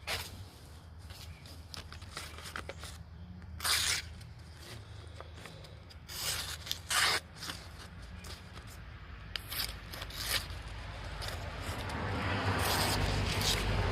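Pocket knife blade cutting: a few short scraping, tearing strokes, each under a second, over a steady low rumble, with a rushing noise building near the end.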